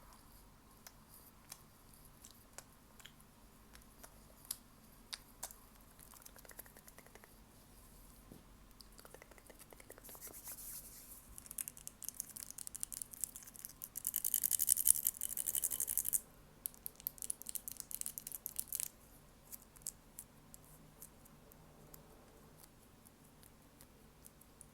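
Close-miked ASMR trigger sounds: scattered light clicks, then several seconds of dense scratchy crackling that is loudest a little past the middle and stops abruptly, followed by a few more clicks.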